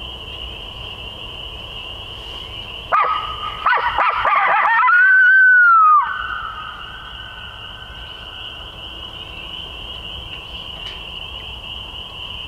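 Coyote howler locator call blown close by: a run of short yips about 3 s in, then one long howl that rises and then drops away, used to shock a roosted wild turkey into gobbling. A steady high-pitched drone runs in the background throughout.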